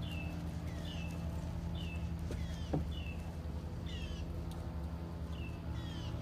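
A bird calling over and over in short descending chirps, roughly two a second, over a steady low hum.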